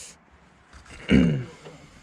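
A person's short throat-clearing sound about a second in, its pitch falling.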